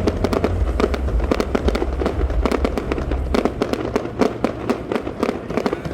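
Fireworks display: dense, rapid crackling of many small bursts over a continuous low rumble.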